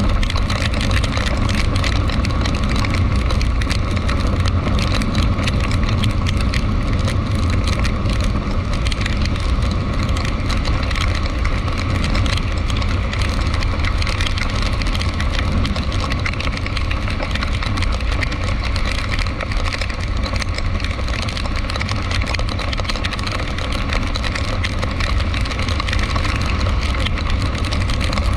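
Vehicle engine running steadily, a constant low drone over an even hiss, with no sudden events.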